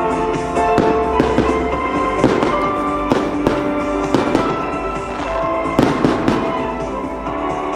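Aerial fireworks shells bursting in a string of sharp bangs, heard over music playing throughout.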